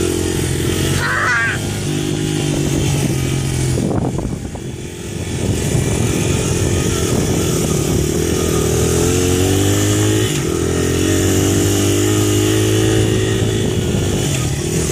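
Small ATV engine running close by, its pitch shifting up and down with the throttle. It eases off briefly about four seconds in, then picks up again.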